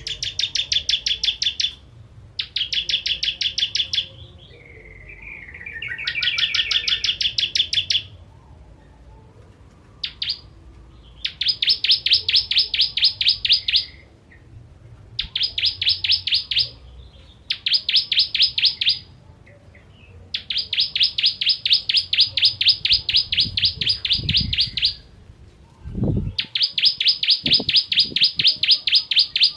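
Ciblek kristal (a prinia) singing in rapid, stuttering bursts of sharp repeated notes, each burst one to four seconds long with short pauses between. A few low thumps come near the end.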